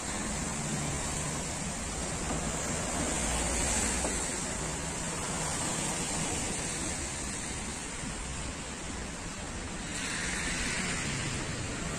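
Steady wash of city street traffic, a continuous hiss of cars and engines with no distinct single event; a brighter hiss swells briefly about ten seconds in.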